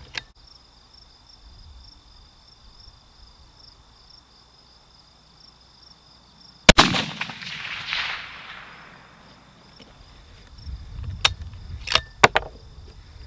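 A single shot from a bolt-action rifle in 300 WSM about halfway through, followed by a decaying echo of about two seconds. A few seconds later the bolt is worked, with several sharp metallic clicks.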